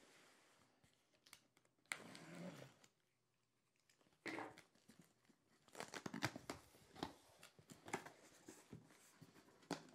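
Box cutter slicing through packing tape on a cardboard box, with a sharp knock about four seconds in. After that comes a run of crackling and tearing as the tape gives and the cardboard flaps are worked open.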